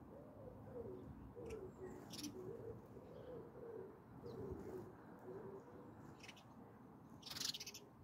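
A pigeon cooing faintly, a run of low wavering coos lasting about five seconds. A few short, high chirps from small birds come through, and there is a brief louder burst near the end.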